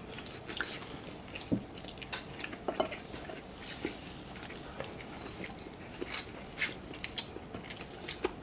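Close-miked eating: wet chewing and lip smacks with irregular small clicks, someone eating chicken curry with rice.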